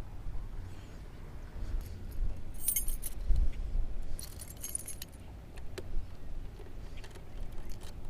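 Two short bursts of bright metallic jingling, about two and a half and four seconds in, over a steady low rumble.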